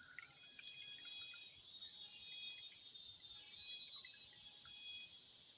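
Steady, high-pitched chorus of forest insects that swells about a second in, with a few faint short chirps over it.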